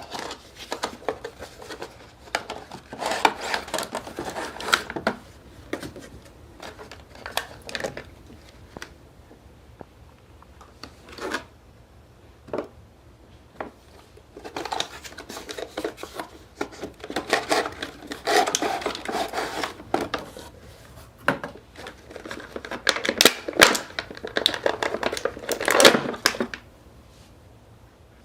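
Action-figure boxes being opened by hand: packaging crinkling, tearing and clicking in irregular spells with short pauses, stopping shortly before the end.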